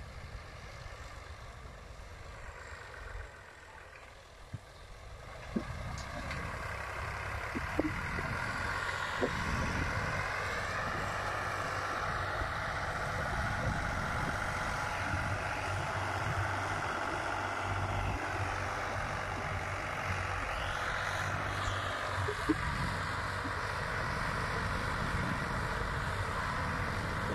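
Fiat tractor's diesel engine running steadily while it pulls a tillage implement through the field, louder from about six seconds in.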